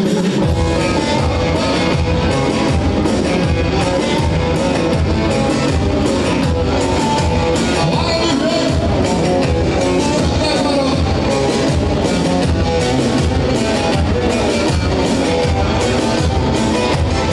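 Çiftetelli dance music played on an electronic keyboard, a busy melody over a steady beat and bass line; the beat and bass come in just after the start.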